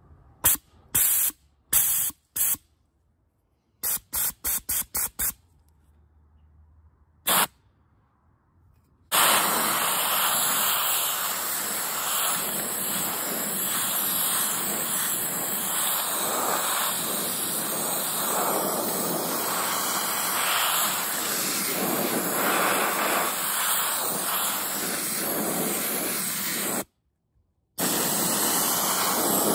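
Harbor Freight gravity-feed handheld soda blaster spraying regular baking soda onto a steel wheel with compressed air. First a string of short hissing bursts, five of them in quick succession, then a steady blasting hiss from about nine seconds in. It breaks off once briefly near the end.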